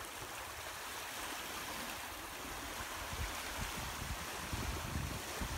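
Small waves lapping and washing over a pebbly shingle shore in a steady wash of water. Toward the end, wind buffets the microphone in low, gusty rumbles.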